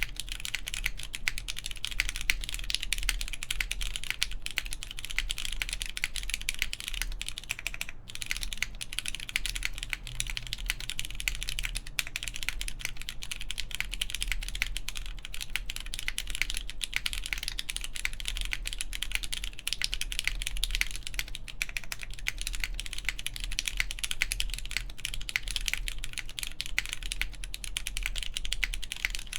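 Continuous fast typing on a plateless mechanical keyboard with lubed Cherry MX Brown tactile switches and GMK keycaps, a dense stream of keystroke clacks.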